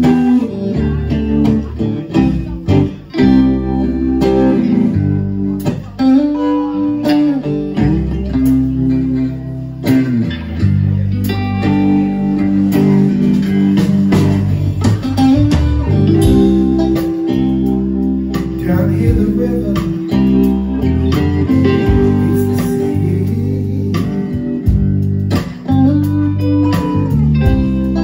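A live blues band playing an instrumental passage: electric guitars over bass guitar and drums.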